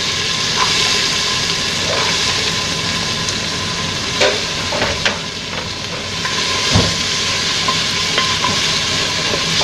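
Garlic, onion and tomato sauce sizzling in hot oil in a metal pot as they are stirred with a spoon. The spoon knocks against the pot a few times.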